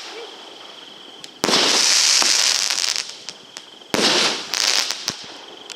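Fireworks going off in two loud fizzing, crackling bursts. The first starts about a second and a half in and runs about a second and a half; the second comes near the end and is shorter. A few sharp pops are scattered around the bursts.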